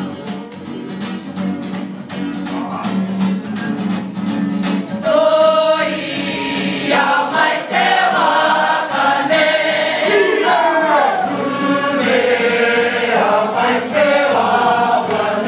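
A large mixed group singing a Māori action song (waiata-ā-ringa) in unison, the voices coming in strongly about five seconds in over a rhythmic accompaniment with a steady beat.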